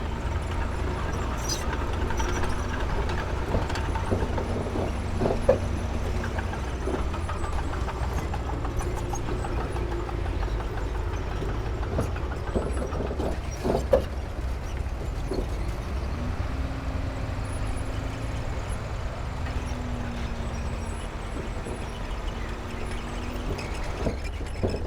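Heavy diesel earthmoving machinery running steadily with a deep rumble, its engine note dipping and rising now and then, and a few sharp metallic knocks, two of them close together past the middle.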